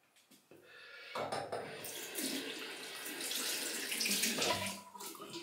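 Tap running into a bathroom sink, water splashing, starting about a second in and easing off near the end.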